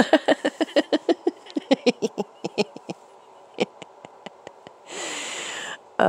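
A woman's breathy laugh in quick pulses that fade away over about three seconds, followed by a few faint clicks and a long breath near the end.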